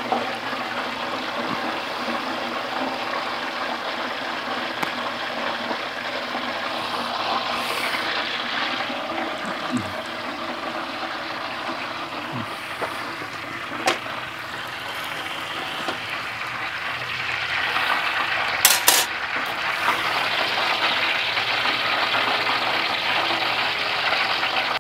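Hot oil in an aluminium turkey-fryer pot sizzling steadily after the turkey has been lifted out. There is a sharp metal clink about 14 seconds in and a quick pair of louder clinks a little before 19 seconds.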